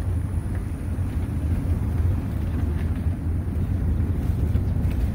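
A vehicle driving along an asphalt road: a steady, fluctuating low rumble of engine and tyres, with wind buffeting the microphone.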